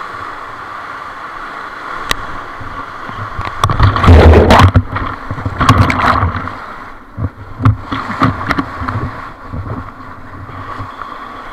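Whitewater rapid rushing around an inflatable raft, with heavy crashing splashes of waves hitting the boat about four seconds in and again near six seconds, then smaller splashes.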